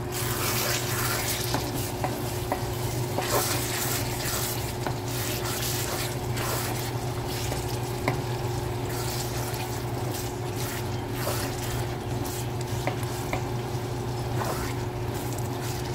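Palm-oil tomato stew base frying in a pan with a steady sizzle while a wooden spatula stirs flaked fish through it, scraping and clicking against the pan. A steady low hum runs underneath.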